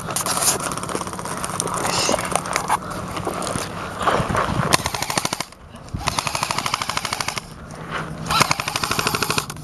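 Airsoft guns firing long full-auto bursts, a rapid even rattle of shots. The firing pauses briefly about halfway through, then resumes in further bursts.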